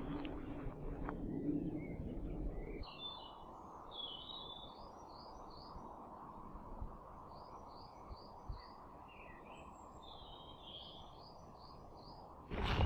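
Woodland songbirds chirping in runs of short repeated notes over a steady low background hum. The first few seconds hold rustling noise that stops abruptly.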